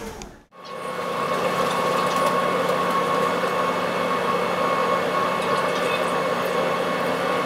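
Steady drone of the car ferry Tokiwa Maru's engines, a low hum with a thin steady tone on top, under an even wash of wind and water noise on the open deck. The sound drops out briefly about half a second in.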